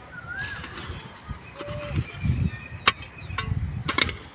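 Short-handled hoe chopping and scraping into dry soil: dull thuds and a few sharp strikes in the second half, where the blade hits hard earth or stones. A bird gives a brief wavy whistle near the start.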